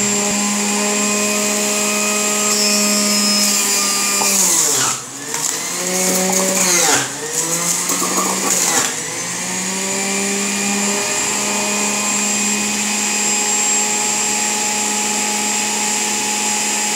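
Electric juicer motor running with a steady hum. Between about four and nine seconds in, its pitch sags and recovers a few times under a louder grinding as vegetables are pushed down onto the spinning cutter. It then settles back to an even, unloaded hum.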